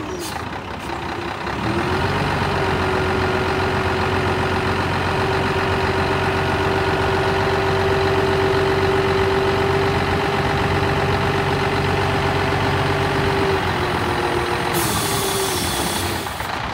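Scania 124G 420 truck's straight-six diesel running with the hooklift's hydraulic pump whining steadily as the hook arm folds down to its stowed position. The whine rises in pitch about two seconds in and drops again near the end, when a short burst of hiss sounds.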